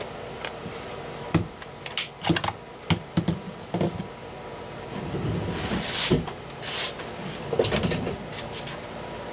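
Hard tools and parts being handled on a desk: scattered clicks and knocks, with a short scraping rustle about six seconds in.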